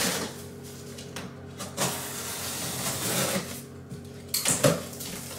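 Packing tape being cut and pulled open along the top seam of a large corrugated cardboard box: a long scraping, tearing stretch in the middle, with a few sharp knocks on the cardboard, the loudest near the end.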